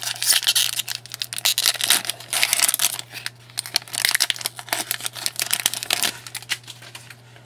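Hockey card pack wrapper being crinkled and torn open, a dense crackling rustle for about six seconds that then drops to quieter handling.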